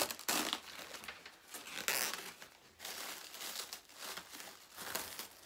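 Plastic wrap and packing paper crinkling and tearing as they are pulled off by hand, in irregular rustling bursts, the loudest right at the start and another about two seconds in.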